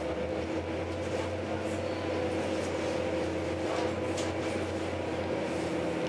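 Electric passenger train heard from inside the carriage as it rolls out of the station: a steady running hum with a constant whine and a few faint clicks.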